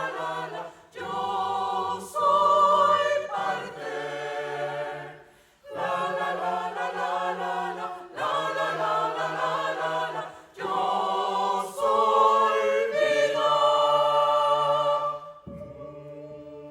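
Choir singing in phrases, each held for a few seconds with short breaks between. Near the end the singing stops and a quieter held chord carries on.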